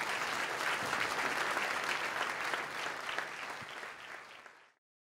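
Audience applauding, a dense steady clapping that fades near the end and then cuts off abruptly.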